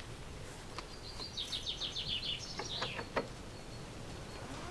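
A small songbird singing: a fast run of high notes falling in pitch, lasting about a second and a half, then a short flourish. A few sharp clicks and knocks follow about three seconds in, over steady outdoor background noise.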